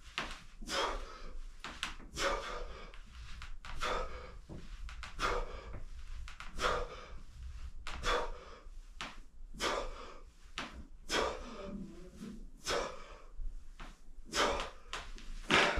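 A person breathing out hard in rhythm, one short forceful exhale roughly every one and a half seconds, with each repetition of an abdominal exercise.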